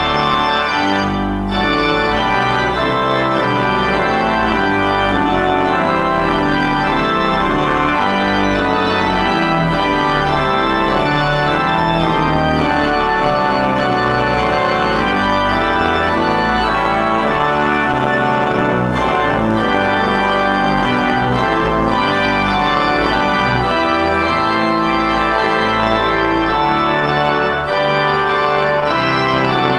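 Church organ playing full, sustained chords over a moving bass line.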